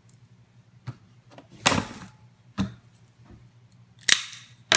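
Sharp clicks and snaps of a knife being handled over a cardboard box: about five separate strokes, the loudest about a second and a half in and two more close together near the end.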